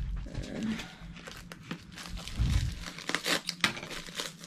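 Crinkling and rustling of white packaging as a rolled diamond-painting canvas is unwrapped by hand, with a dense crackle of handling about three seconds in. Two dull thumps sound, one at the start and one about halfway through.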